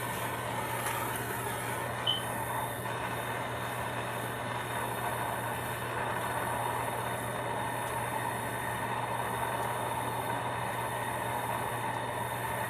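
Plumbing torch flame burning steadily with an even hiss while a copper pipe joint is heated for soldering. A short high chirp sounds once about two seconds in.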